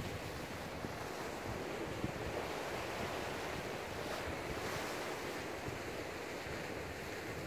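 Choppy sea surf washing and backwashing against a rocky shore, with wind buffeting the microphone. A single brief click sounds about two seconds in.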